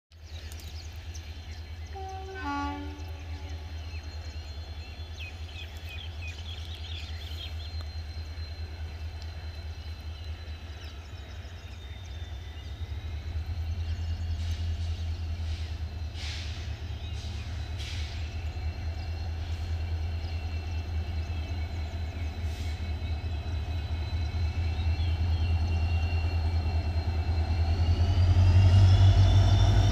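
Diesel locomotive approaching from a distance: a low engine rumble and a steady high whine that grow louder and swell near the end. A short horn toot sounds about two and a half seconds in.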